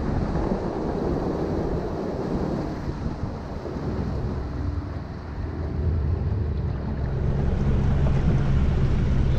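A boat's motor running under way through flooded timber, with water rushing past the hull and wind buffeting the microphone; the engine gets louder in the second half.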